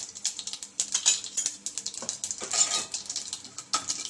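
Mustard and cumin seeds crackling in hot oil in a pressure cooker, many small sharp pops, with a steel spoon clinking in a steel spice tin.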